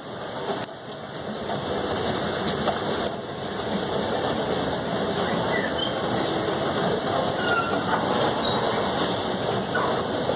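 Airport escalator running as it carries its riders down: a steady rattling rumble from the moving steps, with a few brief squeaks.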